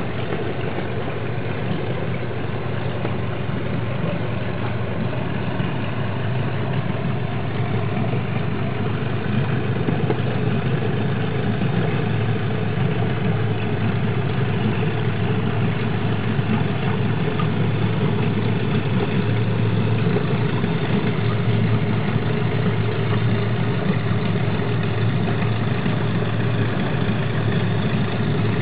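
Steady low drone of an idling engine, even and unbroken throughout.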